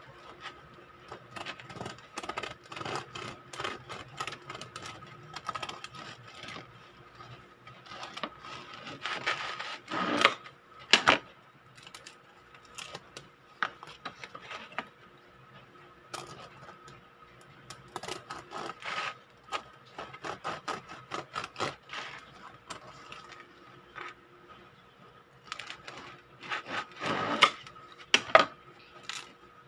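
Serrated bread knife sawing back and forth through a crusty sourdough loaf on a wooden cutting board: runs of short rasping strokes with crackling crust. A few sharper, louder knocks come about ten seconds in and again near the end. A faint steady hum lies underneath.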